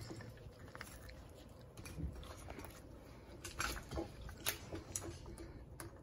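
A hyacinth macaw's beak making faint, irregular clicks and crunches as it bites and chews, about half a dozen over the stretch.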